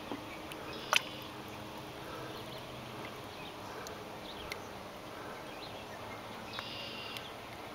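Quiet open-water ambience beside the boat, with a sharp knock about a second in, a few faint ticks, and a brief faint high chirp near the end.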